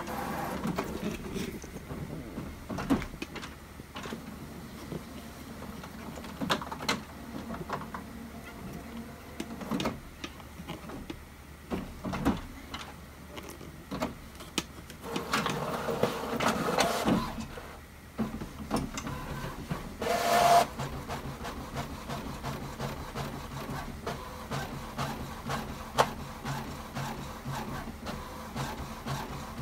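HP OfficeJet Pro 8610 inkjet printer running a print job, with clicks and whirring as the sheet feeds and the print head moves. There is a louder stretch of whirring about halfway through and a short whine a few seconds later, then a steady hum.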